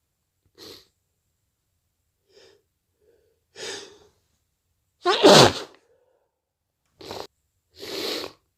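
A person's induced sneeze, loudest about five seconds in, with a voiced sound that drops sharply in pitch. Short sharp breaths build up to it, and two more short noisy breaths follow near the end.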